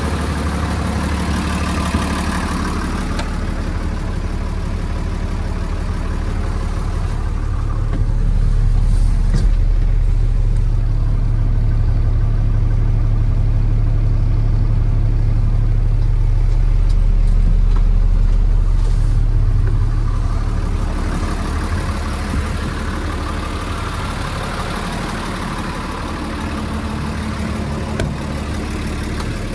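Diesel engine of an Iveco Magirus 168M11 4x4 truck running steadily. About eight seconds in, the low rumble grows louder and deeper, holds until about twenty seconds, then eases back.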